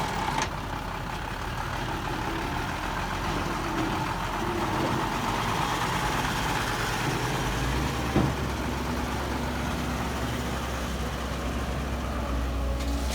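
Heavy diesel engine of earthmoving machinery running steadily. Its low drone steps up a little past halfway through, and there is a single short knock soon after.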